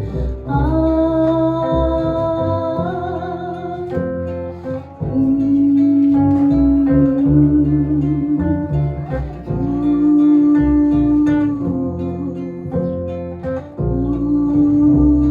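Live instrumental break: acoustic guitar strumming chords under a melody of long held notes, each sustained for a second or two.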